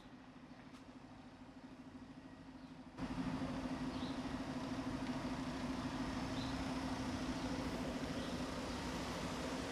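A truck's diesel engine running steadily with an even hum, becoming suddenly louder about three seconds in.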